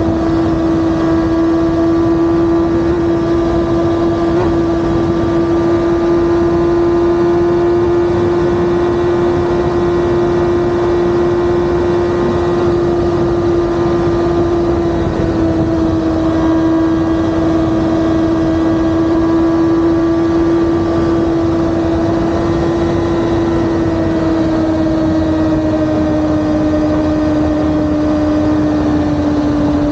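Sport motorcycle engine holding a steady drone at highway cruising speed under heavy wind rush. The pitch drops a little about halfway through and eases lower over the last few seconds as the revs come down.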